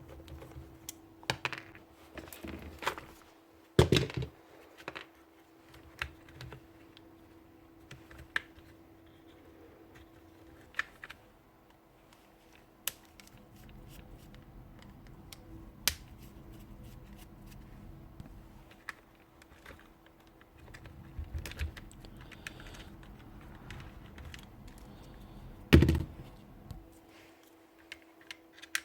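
Scattered clicks, taps and knocks of plastic and metal parts being handled as an orbital sander is taken apart for a switch replacement, with two louder knocks about four seconds in and near the end. A faint steady hum runs underneath.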